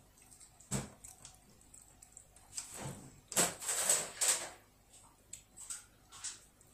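Chopsticks knocking and scraping against a ceramic rice bowl while scooping up rice. There is a sharp knock about a second in, then a run of scraping noises in the middle, and a few lighter clicks near the end.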